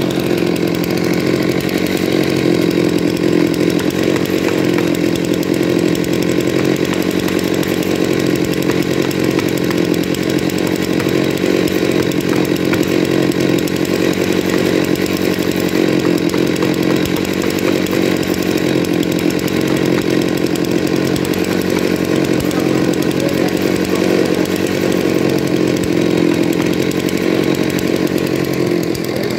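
Chainsaw running steadily at full throttle, ripping lengthwise through a pine log.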